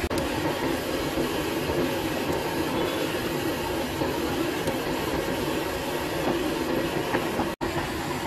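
Potato vadas deep-frying in a large kadai of hot oil over a gas burner: a steady, dense sizzle with a low rumble under it. It cuts out for an instant near the end.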